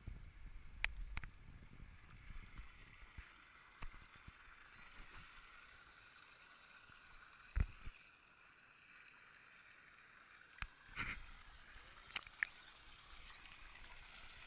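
Faint, steady trickling and lapping of swimming-pool water at the surface, with scattered clicks and knocks. The loudest knock is a dull thump about halfway through.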